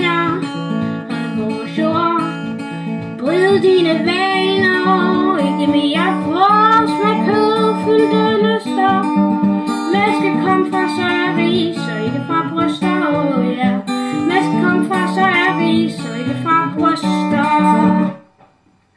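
Instrumental close of a folk song: acoustic guitar strummed steadily, with a sliding melody line over it. The music stops abruptly about 18 seconds in.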